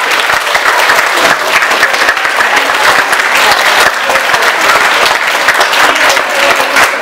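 An audience applauding: dense, steady clapping from many hands.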